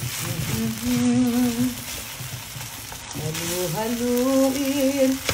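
Kimchi fried rice sizzling in a hot pan as a spatula stirs and scrapes it. A woman's voice twice gives a drawn-out, wavering sing-song over the sizzle, about a second in and again from about three seconds in.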